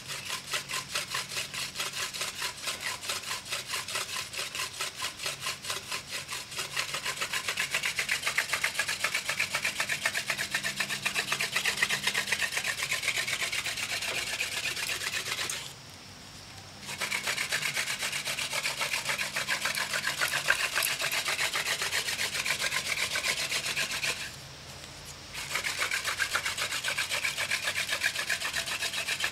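Hand drill for friction fire: a wooden spindle spun back and forth between the palms, grinding in a wooden hearth board to work up an ember. A fast, steady rhythm of scraping strokes that stops twice for about a second, about halfway through and again near three-quarters of the way.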